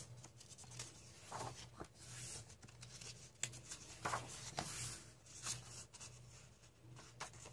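Pages of a paperback coloring book, plain printer-weight paper, being turned and pressed flat by hand: several soft paper swishes and rustles, with a faint steady low hum underneath.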